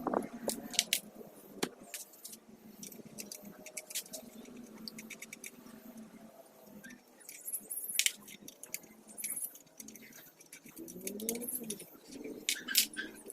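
Metal tools and engine parts clinking and clicking in scattered, irregular knocks, as in hand-tool work on an engine being taken apart.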